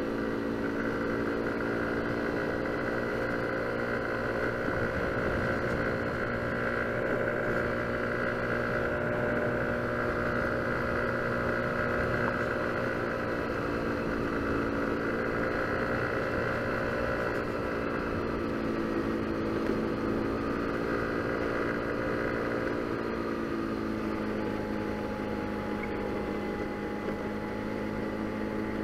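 Motor scooter's engine running steadily under way, its pitch wavering a little and dropping slightly about two-thirds of the way through as it eases off.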